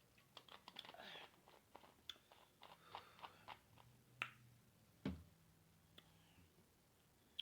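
A person chewing and biting food, with small wet mouth clicks over the first four seconds. A single louder low thump comes about five seconds in.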